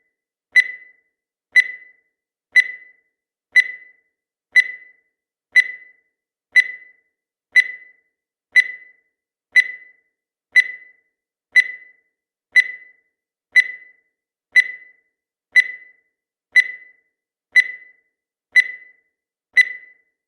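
Countdown timer sound effect: one short, sharp beep-like tick each second, evenly spaced, each dying away quickly with silence between.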